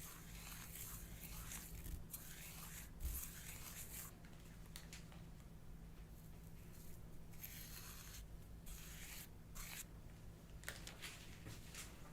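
Slime being worked by hand: faint, irregular sticky crackling and tearing sounds in short bursts, over a steady low hum.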